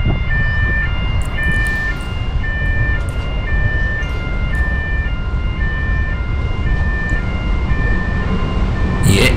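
Level-crossing warning alarm repeating a two-tone electronic chime about once a second, over the low rumble of an approaching Pacific National NR-class diesel-electric freight locomotive. The train noise swells loudly near the end as the locomotive reaches the crossing.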